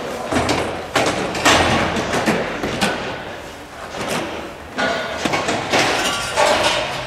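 Metal clanks, knocks and thumps from steel grandstand seating being dismantled and its panels handled, coming irregularly, several in the first couple of seconds and more clatter later on.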